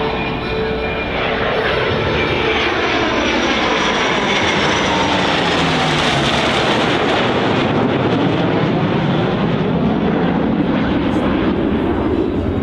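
EA-18G Growler's twin General Electric F414 jet engines, loud and continuous as the jet makes a pass, the tone sweeping as it moves by.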